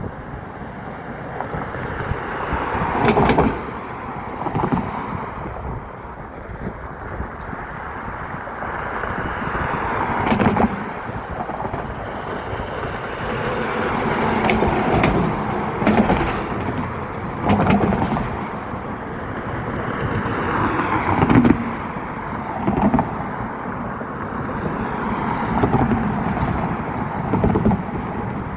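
Road traffic: cars passing one after another, each swelling and fading, with a few short sharp clicks among them.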